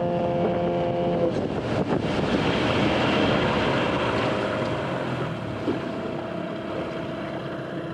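Small two-stroke outboard motor running at full throttle, then throttled back to idle about a second in while still in gear. Its note drops away under the rush of water and wind as the boat slows, and near the end it is idling steadily rather than stalling.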